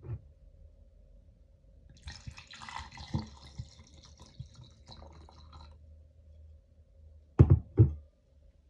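Red wine poured from a glass bottle over ice cubes in a stemmed wine glass, splashing and trickling for about three and a half seconds. Near the end come two loud thumps close together.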